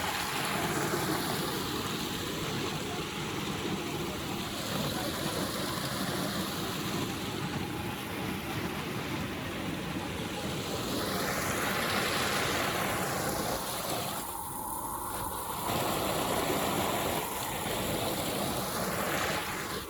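Steady rushing water, with a rise and fall that sweeps slowly through the hiss and a brief thinning about three quarters of the way through.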